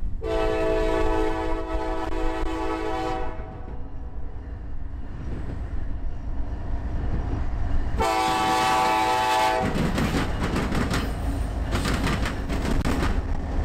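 Norfolk Southern diesel locomotives sound a multi-note air horn: a long blast of about three seconds, then a shorter one of about a second and a half, over the low rumble of the engines. As the locomotives pass close, their wheels clatter on the rails.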